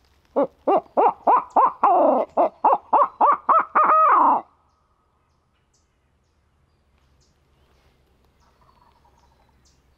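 A mouth-blown owl hooter locator call imitating a barred owl, blown in a rapid run of about a dozen hoots that ends on a longer drawn-out note, meant to make turkeys shock-gobble. A few seconds later a faint, distant turkey gobble answers.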